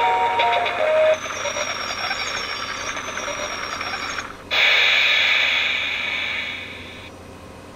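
Toy train coin bank: its electronic chime melody ends about a second in, then the toy train's small motor runs with a faint high whine. About four and a half seconds in a loud hiss starts suddenly and fades out.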